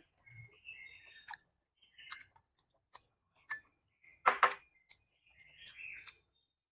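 Close-miked eating sounds: chewing with small wet clicks and crunches, one sharper, louder crunch or click about four seconds in.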